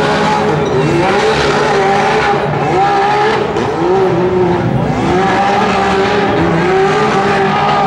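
Polaris RZR side-by-side engine revving hard while it climbs a steep rocky hill. The engine note surges up and falls back about once a second, over the noise of spinning tires.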